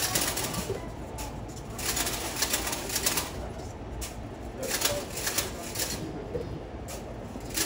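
Railway station ambience: a steady low rumble with loud surges of hissing noise every two or three seconds.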